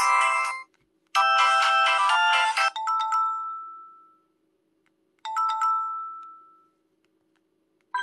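Ringtone previews from a ZTE Z222 flip phone's built-in speaker. One melody cuts off under a second in, a second plays from about a second in and ends in ringing tones that fade out, and a short chime sounds at about five seconds and fades.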